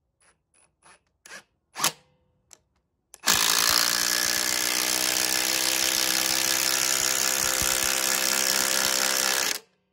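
Ryobi P238 18V brushless impact driver hammering a lag bolt into a wooden 4x6, running loud and steady for about six seconds before stopping abruptly. A few short clicks come in the first three seconds before the driving starts.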